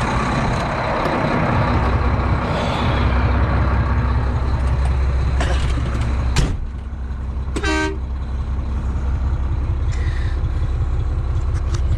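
Diesel engine of a Volvo VNL semi truck running steadily, heard from inside the cab, its low drone growing stronger about two seconds in. A sharp click about halfway through is followed by a short pitched toot.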